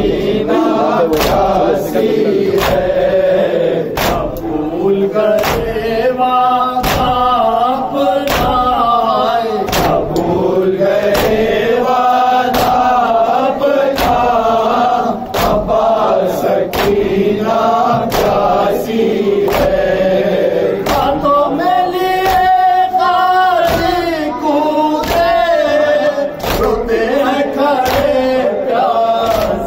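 Men's voices chanting a nauha, an Urdu mourning lament, led by one reciter with the group answering in unison. Rhythmic matam runs through it: open hands striking chests together at about three strikes every two seconds.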